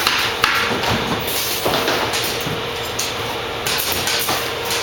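Printed canvas being slid and handled along a stretcher table's metal rail, with scraping and rustling and one sharp click about half a second in, over a faint steady machine hum.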